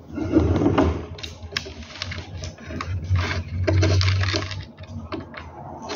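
Irregular clicking and rattling of small plastic and metal parts being handled while a vertical-blind headrail is assembled by hand, louder about half a second in and again around four seconds in.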